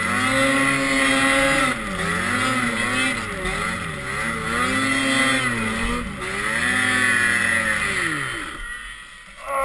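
Ski-Doo Summit 800's two-stroke twin engine revving hard through deep powder, its pitch climbing and falling every second or so. About eight and a half seconds in the engine note drops away as the sled bogs down, then a short rev comes up again near the end.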